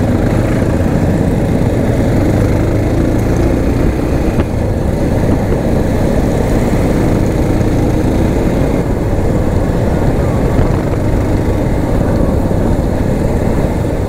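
Motorcycle engine running steadily under a continuous low rumble.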